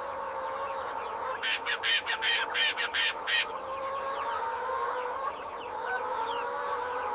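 A flock of laying hens clucking, with drawn-out, wavering calls throughout and a rapid run of louder, sharper sounds between about one and a half and three and a half seconds in.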